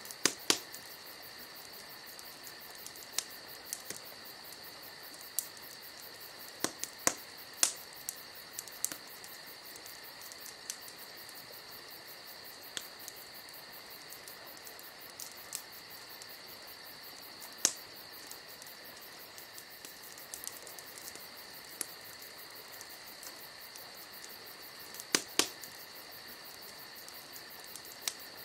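Steady background hiss with a constant high-pitched whine, broken by irregular sharp clicks and pops, loudest in small clusters.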